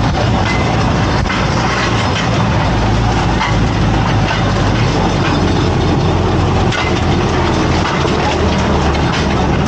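Rail vehicle running along the track: a steady engine drone with a busy clatter of wheels over the rails.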